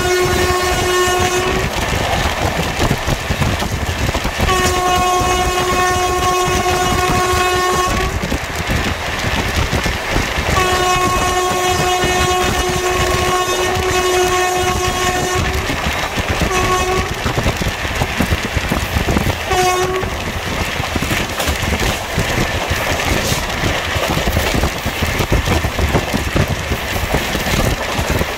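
Locomotive horn of an express train running through a station at full speed, heard from an open coach door: a blast ending about a second and a half in, two long blasts of several seconds each, then two short toots, all on one steady note. Under it the constant rumble and clatter of the coaches' wheels on the rails.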